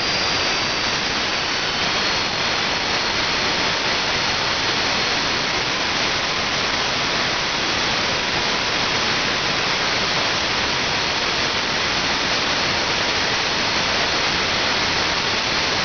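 Small home-built gas turbine engine running: a steady rushing roar with a faint high whine that sinks slightly in pitch over the first couple of seconds, then holds.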